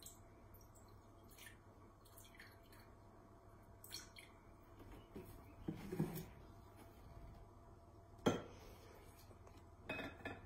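Faint trickle and drips of water poured from a plastic bottle into a glass measuring jug, with scattered light clicks and knocks of the bottle and jug against the wooden benchtop. The sharpest knock comes about eight seconds in.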